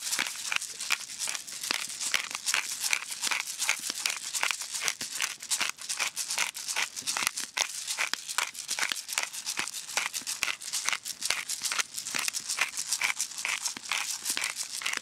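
A pepper grinder being turned: a fast, steady stream of dry crackling clicks that stops abruptly near the end.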